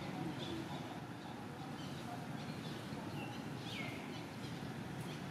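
Outdoor background noise with birds calling: a few short chirps and one clear falling call about four seconds in.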